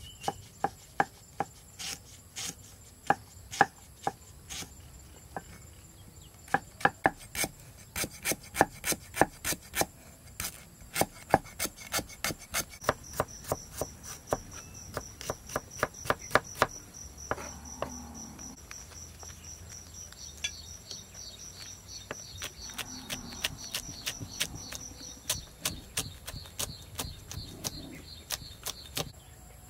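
Large kitchen knife chopping lemongrass, ginger and leaves on a thick round wooden chopping block: sharp strikes, a few a second, in quick runs through the middle. Insects chirr steadily in the background from about halfway on.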